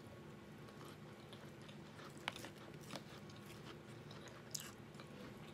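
A person chewing a mouthful of chicken pot pie with a flaky crust, faint and close, with a few short sharp clicks over a low steady hum.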